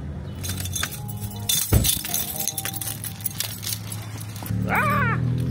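Small clinks and jangles with one heavy thump a little under two seconds in, over a steady low hum.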